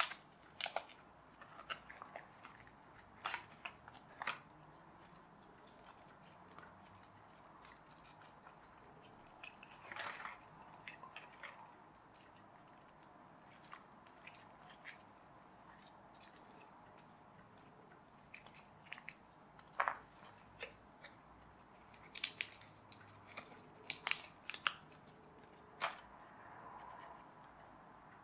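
Quiet handling sounds of a press-out pullback toy plane kit being assembled: irregular clicks, creaks and short scrapes as parts are prodded with a screwdriver tip, pushed out and slotted together, with a busier run of clicks near the end.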